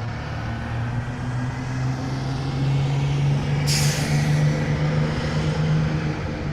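Bus engine running, its pitch climbing slowly, with a sudden hiss of the air brakes about three and a half seconds in.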